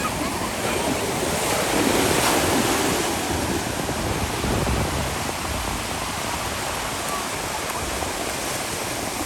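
Ocean surf washing in, with wind on the microphone; the wash swells louder about two seconds in.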